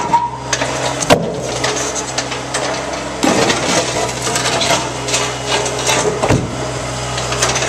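Compact excavator's diesel engine running steadily while its bucket and hydraulic thumb pry up and break concrete slabs: concrete scraping and grinding, with sharp cracks and knocks about a second in, a little after three seconds, and a little after six seconds.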